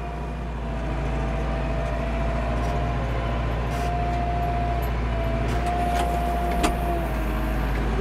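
Landini Blizzard 65 tractor's Perkins four-cylinder 4.0-litre diesel running steadily, heard from inside the cab, with a thin whine through the middle and a couple of clicks near the end.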